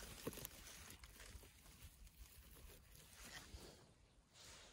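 Near silence with faint rustling and a few soft clicks of dry leaf litter being stirred.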